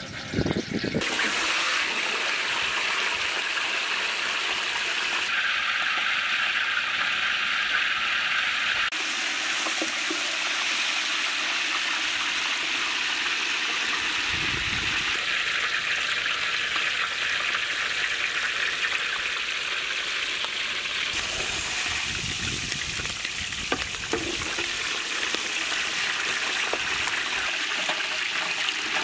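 Whole boiled goat frying in hot oil in a wide aluminium pan, a steady, dense sizzle that sets in about a second in after brief clatter as the meat is handled.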